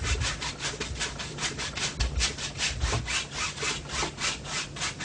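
A wide bristle brush scrubbing rapidly back and forth across a stretched canvas, about six strokes a second, blending oil paint in criss-cross X strokes.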